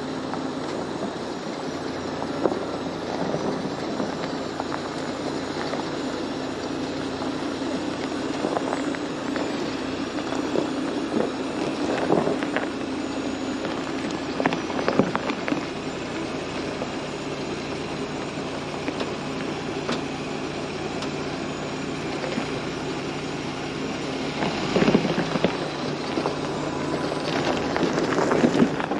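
Jeep Gladiator driving slowly over a rough dirt trail: a steady engine drone with tyre and body noise, broken by scattered knocks and rattles, the stronger ones around the middle and near the end.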